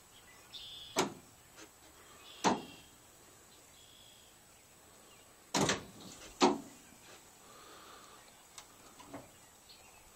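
Aftermarket solenoid tailgate release on a 2006 Chevrolet Silverado, fired from a remote-starter fob: four sharp clacks, two lighter ones about a second and a half apart, then two louder ones close together a few seconds later, as the solenoids pull and the tailgate latches let go.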